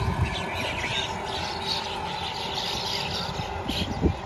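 A flock of birds chirping and calling again and again, over a steady low rumble, with a brief thump near the end.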